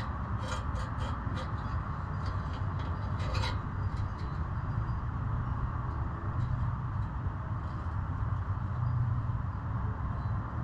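A few light metallic clicks of the exhaust clamp's small bolts and nuts being handled and fitted by hand, in the first few seconds, over a steady low hum.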